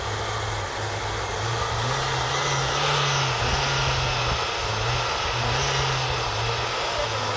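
A vehicle engine revving up and down under load, its pitch rising about a second and a half in, dipping briefly in the middle and falling again near the end.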